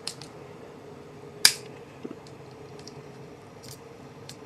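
Victorinox Climber Swiss Army knife having its screwdriver tool pried open: one sharp metallic click about a second and a half in, followed by a smaller click and a few faint ticks.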